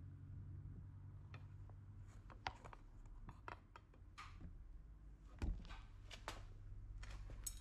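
A faint steady low hum, with scattered light clicks and scrapes of a metal rod working in the graphite crucible of an electric melting furnace full of molten aluminium. One dull knock comes about five and a half seconds in.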